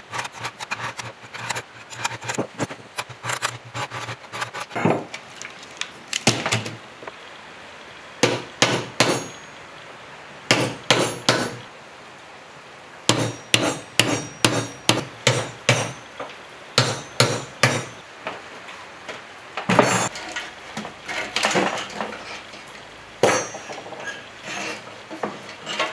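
Hammer blows on a steel chisel, cutting the old copper windings out of a generator's stator: runs of sharp metallic knocks about two a second, with a ring after each and a few short pauses.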